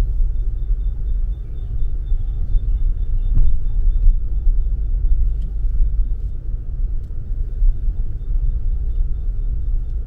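Steady low rumble of a car driving along a paved road, heard from inside the cabin.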